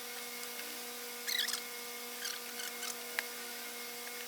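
A few short scraping squeaks and one sharp click from metal parts being handled and worked apart by hand, over a steady background hum.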